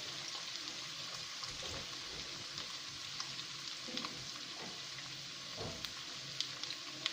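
Chicken and vegetables sizzling in a hot pan as they are stir-fried, with a few light clicks of the cooking utensil against the pan near the end.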